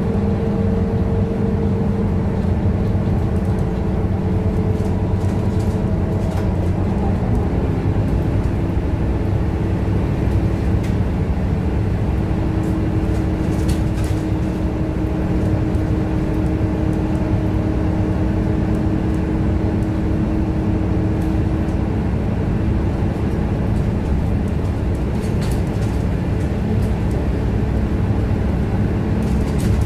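Scania K230UB city bus's diesel engine and drivetrain running steadily at cruising speed, heard from inside the passenger cabin, with a steady whine over the engine hum and a few light clicks.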